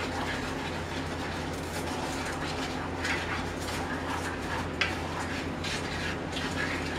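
A spoon stirring a thickening brown sugar and butter mixture in a pan, with light scraping and a single sharper clink about five seconds in, over a steady low hum.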